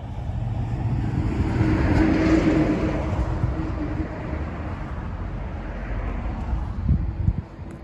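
A car passing close by, its engine and tyre noise swelling to a peak about two seconds in and then fading away. Low rumbles of wind on the microphone come near the end.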